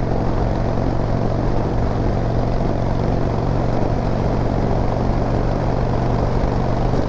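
Harley-Davidson V-twin motorcycle engine running steadily at cruising speed, with road and wind noise.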